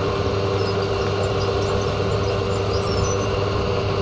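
Steady noise of a passenger train heard from inside a carriage: an even rumble with a constant humming tone.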